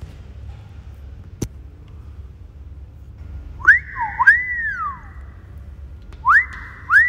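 An iPhone plays a custom charger-disconnect alert set up with a Shortcuts automation: a recorded whistle that sweeps up and then rises and falls, like a wolf whistle, heard twice about two and a half seconds apart. It is preceded by a single click about a second and a half in.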